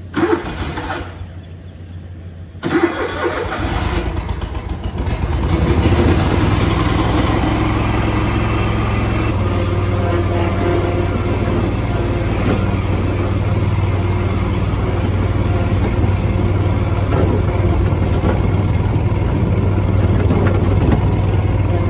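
Zero-turn mower's engine being started: a short burst right at the start, then it catches about three seconds in, comes up to speed a couple of seconds later and runs steadily as the mower drives off.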